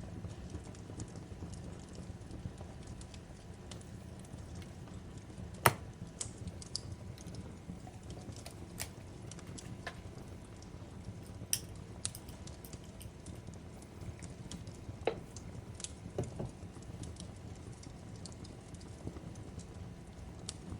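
Fireplace crackling: a steady low rumble of burning wood with irregular snaps and pops. The sharpest pop comes about six seconds in, with a few more strong ones later.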